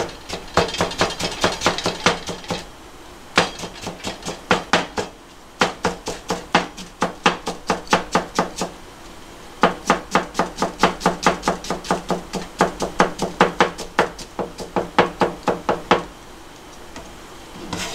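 A square-bladed kitchen knife chopping through cucumber onto a plastic cutting board, cutting it into thin strips. It goes in quick runs of even knocks, about five a second, with short pauses between runs.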